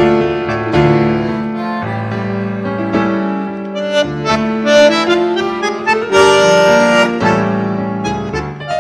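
Bandoneon playing a tango: reedy held chords under a melody of shorter notes, the pitch changing every second or so.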